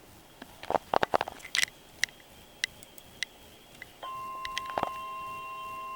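A few sharp clicks and knocks, then about four seconds in a steady, unwavering alert tone starts and holds. This is the weather radio's 1050 Hz warning alarm tone, which follows the coded alert header and announces an emergency message.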